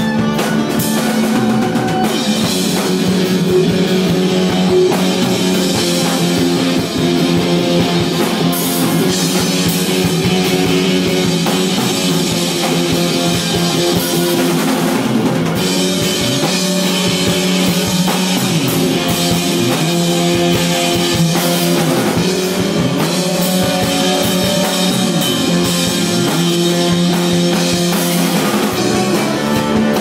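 Live rock band playing: distorted electric guitar, bass guitar and a drum kit, loud and steady.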